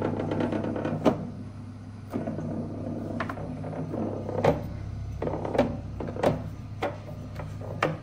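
BougeRV CR45 12V portable compressor fridge running with a low steady hum, while its near-empty baskets rattle in short irregular clicks about once a second. The rattle comes from the compressor's minor vibrations shaking baskets that hold few items.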